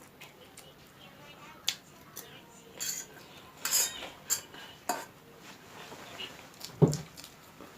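Cutlery clinking and scraping against a bowl in several short, separate strokes while noodles are eaten, with a low thump near the end.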